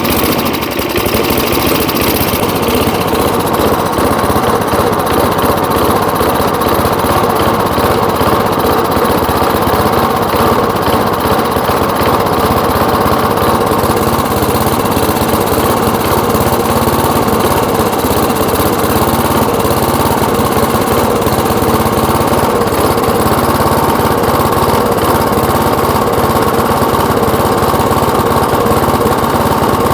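3.5 hp Briggs & Stratton single-cylinder engine on a 1979 Rocket push mower running steadily, not yet fully smooth, with a roughness the owner wonders may be a sticky valve.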